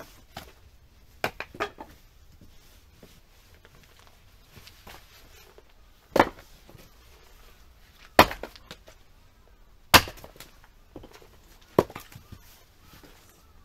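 Fiskars X27 splitting axe striking firewood rounds on a chopping block, each blow a sharp crack as the wood splits. A few light knocks come first, then four loud strikes about two seconds apart.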